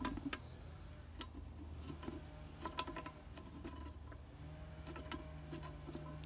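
Faint small metallic clicks and taps as a loosened bolt on a vintage level crossing wigwag's lamp housing is handled and the hinged red lens door is pulled open.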